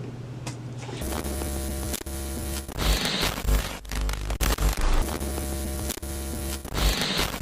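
Outro music starting about a second in: a heavy, distorted bass with sustained tones and a repeating beat.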